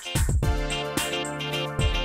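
Instrumental rap backing beat: regular drum hits with cymbal ticks over sustained pitched notes, no vocals yet.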